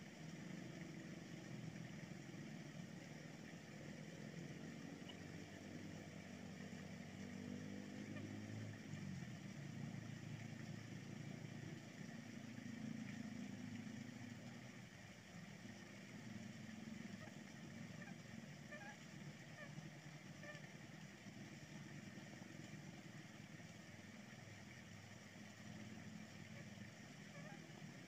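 Faint low engine drone running steadily, its pitch wavering slightly and dropping a little in level about halfway through.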